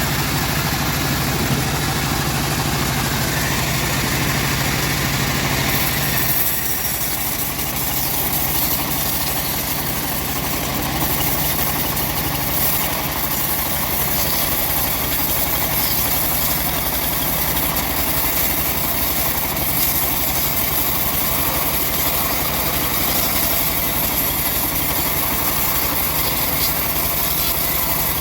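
Engine-driven homemade band sawmill running steadily while sawing an old mahogany log. About six seconds in, the low engine tone drops and a higher hiss comes up, then holds steady.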